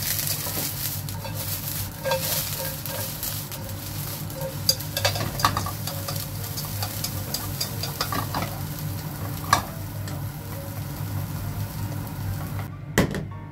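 Bean sprouts sizzling as they are stir-fried in a nonstick frying pan, with chopsticks clicking and scraping against the pan several times over a steady low hum. The sizzling stops shortly before the end, followed by a single knock.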